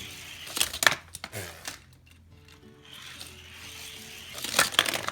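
Hot Wheels die-cast toy cars rolling down a plastic play-set track with a light rattling hiss. Sharp plastic-and-metal clacks come about a second in and again near the end. Soft background music plays underneath.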